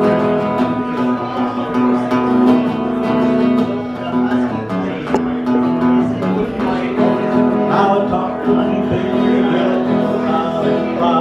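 Two acoustic guitars playing together live, with chords strummed and steady sustained notes throughout.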